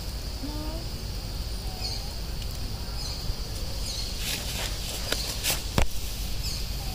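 Steady, high-pitched insect drone over a low outdoor rumble, with a few faint short chirps. Between about four and six seconds in, a burst of crackles and sharp clicks from dry leaf litter as a young monkey walks over it.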